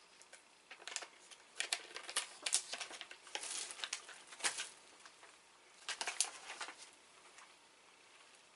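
Plastic snack wrapper crinkling and rustling as it is handled, in several short bursts, loudest from about two to four seconds in and again around six seconds.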